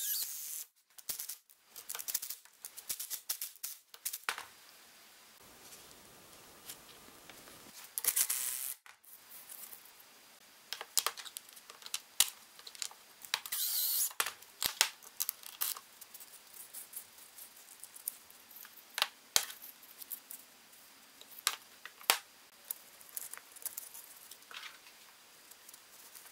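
Power tools run in short bursts of about a second each, a drill and a rotary tool working holes through stacked plywood parts. Between the bursts come many sharp clicks and clacks of the wooden parts and hardware being handled.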